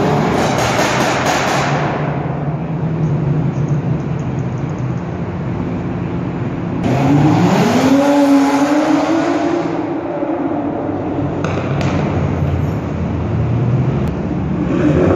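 Cars drifting: engines revving hard with tyres sliding on the pavement. About seven seconds in, an engine climbs steeply in pitch and holds at high revs while a black BMW sedan slides sideways. Another car's engine and tyres rise again near the end.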